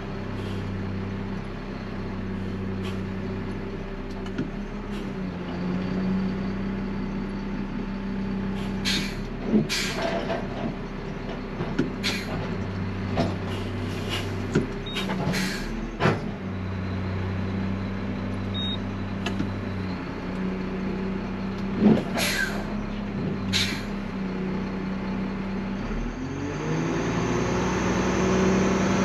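Front-loading garbage truck's diesel engine running with the hydraulics working, its pitch stepping up and down while a dumpster is handled. Sharp metal bangs and clanks come irregularly through the middle. Near the end the engine revs climb.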